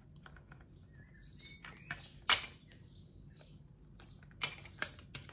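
Scattered light taps and clicks of hands pressing cut vinyl lettering onto a hard surface, with one sharper click about two seconds in and two more near the end.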